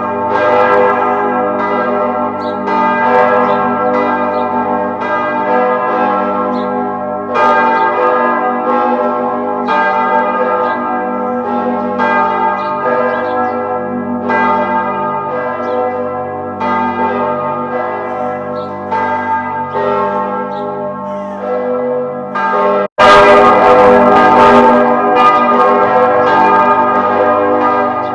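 Church bells ringing continuously, many strikes overlapping with long ringing overtones. Shortly before the end the sound cuts out for a moment and comes back louder and brighter.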